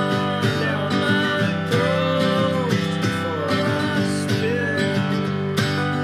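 Acoustic guitar and metal-bodied resonator guitar playing a folk tune together, strummed and picked, with a melody line that glides in pitch above the chords.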